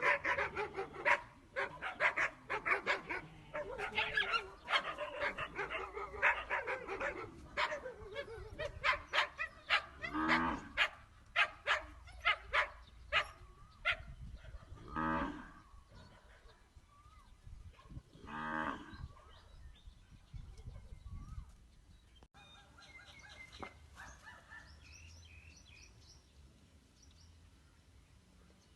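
Puppies calling: a rapid string of short yaps and yelps for the first half. Then three separate long, drawn-out howling calls, and only faint scattered sounds near the end.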